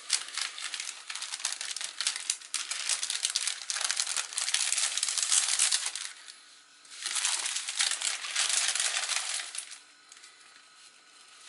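Plastic packaging, a padded plastic mailer and a clear plastic bag, crinkling and rustling as it is handled and opened by hand, in two bouts with a short pause between, fading out near the end.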